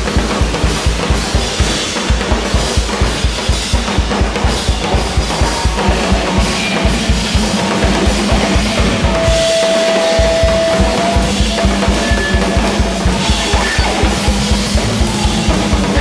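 Loud drum-driven rock music from a rock rhythm-section ensemble: a fast, even bass-drum pulse of about five beats a second under snare and cymbals, with a held high note and a short break in the bass drum around the middle.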